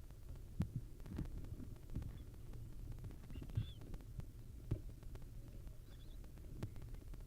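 Soft irregular thumps and knocks of barn owls shifting about on the wooden floor of a nest box, over a steady low hum, with faint high chirps about three and a half and six seconds in.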